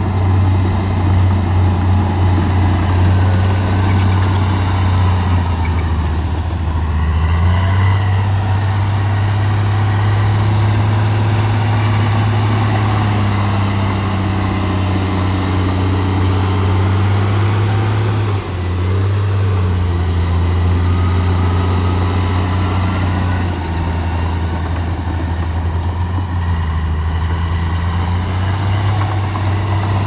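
Heavy machinery's diesel engine running at a steady speed, with its pitch shifting slightly a few times and dropping briefly about eighteen seconds in.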